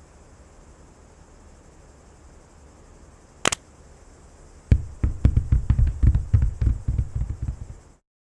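Hand-made foley sound effects: a single sharp click, then about three seconds of rapid, irregular low thuds and knocks that stop abruptly, over a steady hiss.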